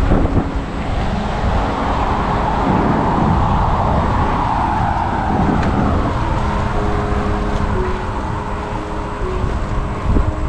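A car passing on the road, its sound swelling and then fading over several seconds, over steady wind noise on a moving bicycle's microphone. Faint sustained music notes come in during the second half.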